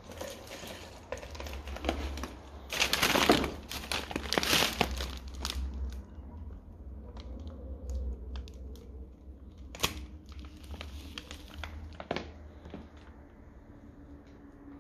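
Loose paper and cardboard debris rustling and crunching as it is disturbed, loudest in a stretch of bursts a few seconds in, with a few sharp clicks later, over a low steady rumble.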